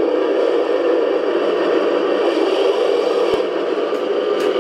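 RC T-34 tank's sound unit playing a steady simulated engine running sound through its speaker.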